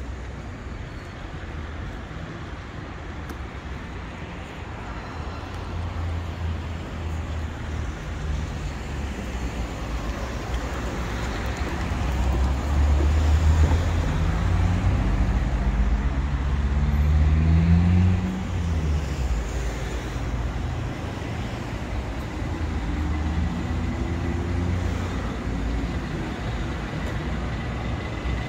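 Street traffic, with cars driving past on the road. One passing vehicle grows loudest about halfway through, its engine rising in pitch, then falls away fairly suddenly. Later another engine rises in pitch more faintly.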